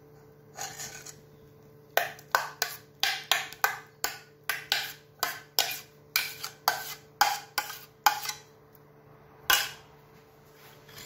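A metal spoon scraping thick pap out of a metal pot into a bowl. About two seconds in comes a quick run of sharp scraping strokes, about three a second for some six seconds, with one lone stroke before it and one after.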